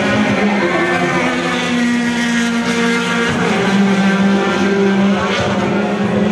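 Several racing car engines running hard at once, their pitch rising and falling.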